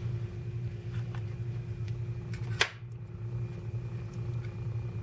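A steady low hum under faint light taps of a frozen-meal tray being handled, with one sharp click about two and a half seconds in.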